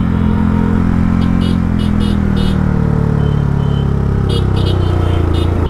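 Motorcycle engine running under the rider, its pitch slowly falling over several seconds as the bike eases off.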